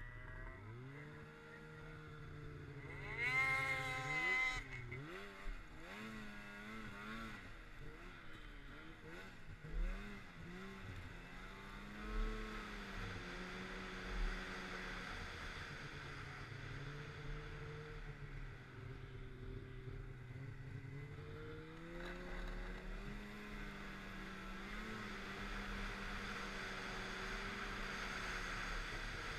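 Snowmobile engine under way, revving up sharply about three seconds in, then rising and falling in pitch with the throttle before settling into steadier cruising. A few low thumps come around the middle.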